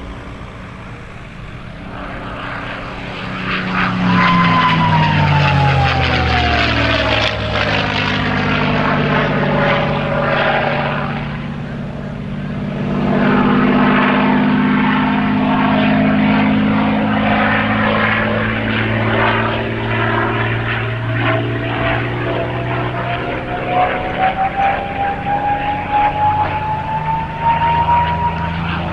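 A P-51D Mustang's Packard Merlin V-12 engine running at display power during low passes: its pitch drops sharply as it sweeps by about four seconds in, it passes loud again a little before the middle, and a tone climbs slowly in pitch near the end as it comes round again.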